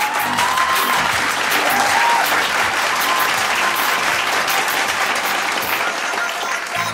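Theatre audience applauding steadily, with dense clapping throughout.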